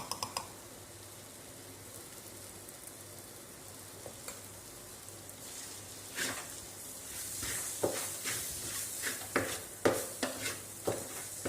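Onion and tomato masala frying in oil in a pan, sizzling faintly. From about six seconds in, a spoon stirs it in a run of scrapes and knocks against the pan, and the sizzle grows louder.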